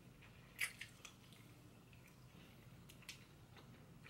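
Quiet mouth sounds of a person eating grilled chicken feet: a sharp wet smack about half a second in, then a few faint clicks of chewing.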